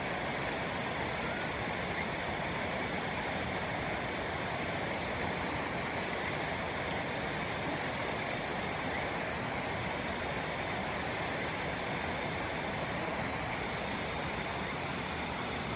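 Steady, unbroken rushing noise like running water, with faint high steady tones above it.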